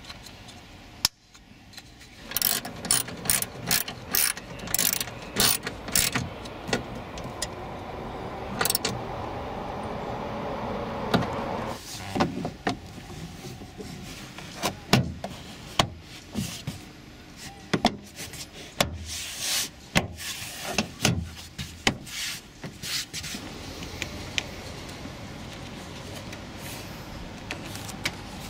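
Irregular sharp clicks and knocks of plastic interior trim panels and clips being handled and pressed into place in a Scion tC's rear cabin. In the first half a faint hum rises in pitch and stops suddenly.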